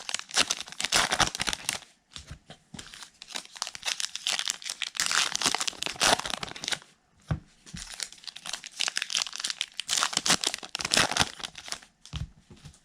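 Plastic-foil wrapping of trading card packs crinkling and tearing in repeated stretches as it is handled and ripped open, with a few soft thuds.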